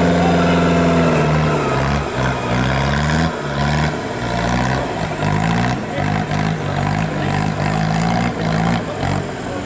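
Off-road 4x4's engine held at high revs, then revved up and down over and over, rising about every half second to a second, as the vehicle fights to drive out while stuck deep in mud.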